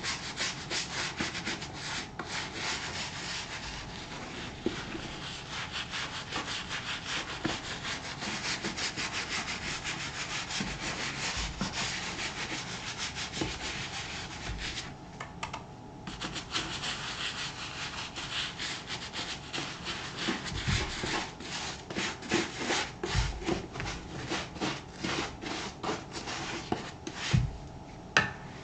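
Leather of a black Thorogood moc toe boot being scrubbed with saddle soap: rapid, steady rubbing strokes, with a brief pause about halfway and more separate strokes after it.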